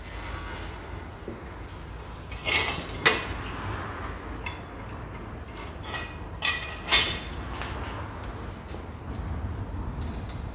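A hammer strikes a wrench fitted to a seized drive-shaft bolt at the wheel hub, to break it loose. There are four sharp metallic clanks with a short ring, in two pairs about three and a half seconds apart.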